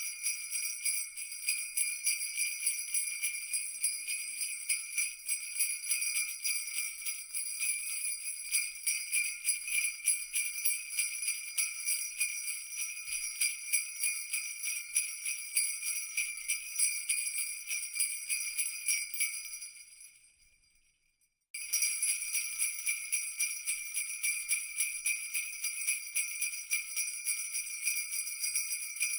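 Jingle bells shaken continuously in a fast, dense jingle. About twenty seconds in the jingling fades out, stops for a second or two, then starts again abruptly.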